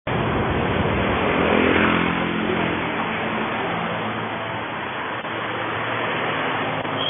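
Vehicle engine accelerating while driving along a road, its pitch rising over the first two or three seconds, then running more steadily, with constant road and wind noise.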